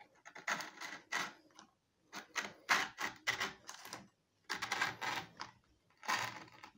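Utility knife blade slicing through skateboard grip tape along the edge of the deck, a run of short scratchy rasps with brief pauses between them.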